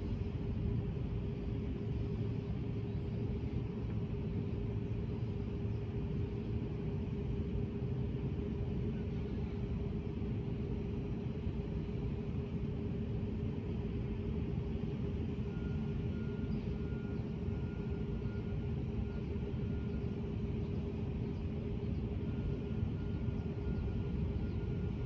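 A steady low rumble with a constant hum running under it. A faint high tone comes and goes in the second half.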